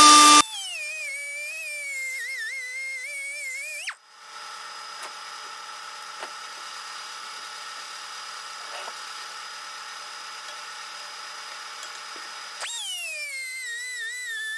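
Small cutoff-wheel tool whining with a wavering pitch as it cuts into the bearing retainer ring on an axle shaft, then stopping abruptly about four seconds in. A faint steady hum remains until the tool starts again near the end, its whine falling in pitch as the wheel bites the ring and throws sparks.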